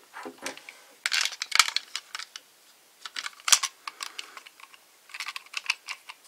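Hard plastic action figure and toy bike parts clicking and rattling as they are handled and posed. The clicks come in four short flurries, the sharpest a little past the middle.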